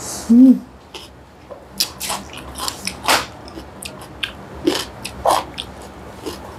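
Close-miked chewing of spicy saucy noodles, with many scattered short sharp clicks and wet smacks. A short hummed note about half a second in is the loudest sound.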